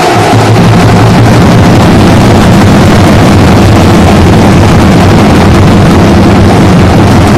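A band of large metal-shelled drums beaten with sticks, played together so loud that the recording overloads into a dense, distorted, continuous din.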